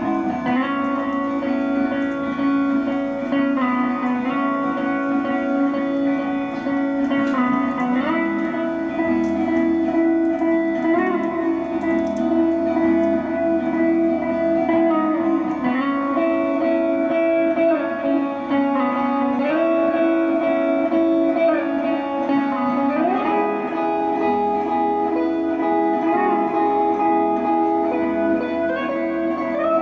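Live psychedelic music led by electric guitar: long held notes that slide up in pitch from one to the next over a sustained backing.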